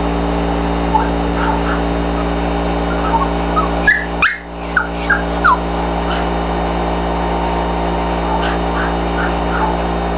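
Puppy giving a quick run of short, high yelps about four seconds in, with fainter squeaky calls scattered before and after, over a steady loud hum.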